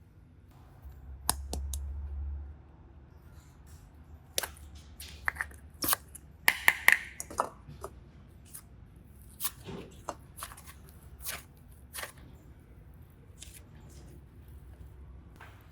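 Close-up handling of clay and small plastic pieces: irregular sharp clicks and taps, thickest in the middle, with a brief squeak partway through.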